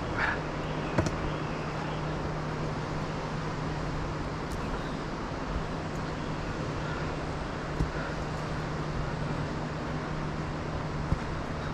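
Steady rushing of river rapids, with a few faint short bird chirps and three sharp knocks.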